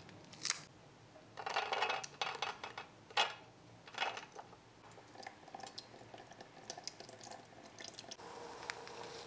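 Crackling of a small plastic clamshell container as it is handled and opened, with short rattles as blueberries are tipped into a plastic strainer. Near the end a thin trickle of tap water starts running over the berries into a small steel sink.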